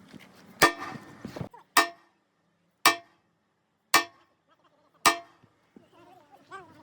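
Five evenly spaced hammer blows on steel, about one a second, each ringing briefly. Faint voices come in near the end.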